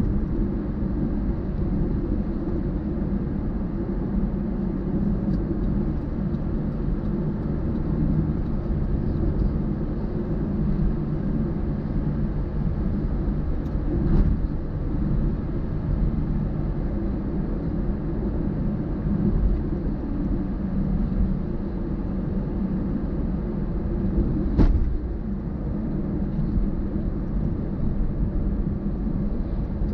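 Road vehicle on the move: steady engine and road rumble, with two brief knocks, one about halfway through and one near the end.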